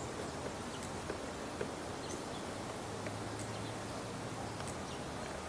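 Steady outdoor background noise with a faint low hum and faint high-pitched ticks a little over a second apart.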